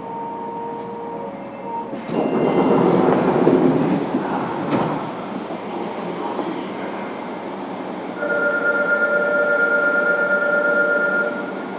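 Fukuoka City Subway 1000-series electric train heard from on board: steady whining tones from its VVVF inverter and traction motors over the running noise. There is a louder rush of noise from about two to five seconds in, ending with a sharp click, and steady whining tones again near the end.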